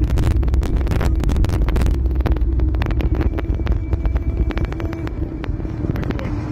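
Car driving at speed, heard inside the cabin: a low rumble of road and engine noise, with frequent crackles over it.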